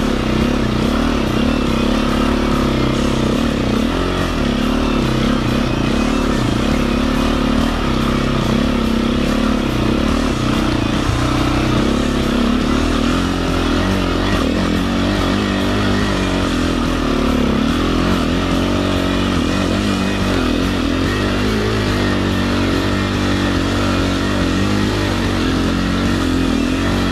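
Enduro motorcycle engine running under load on a climb, its revs rising and falling continually.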